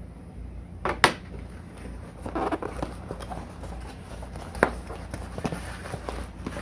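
Hands handling a hard drive's retail box and packaging: a sharp knock about a second in, rustling a little later, another click past the middle, and small scattered ticks.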